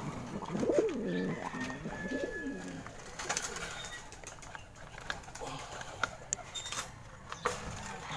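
Racing pigeons cooing, two coos in the first couple of seconds, followed by scattered light clicks and knocks as a drinker is handled at the cage.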